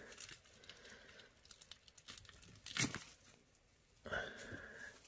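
Plant roots crackling and tearing as firmly stuck aquarium plants are pulled off a rock by hand, with scattered small clicks and one louder snap a little before three seconds in.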